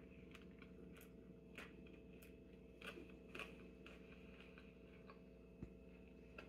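Faint chewing of a mouthful of thick handmade tortilla, soft mouth clicks about every half second over a low steady room hum.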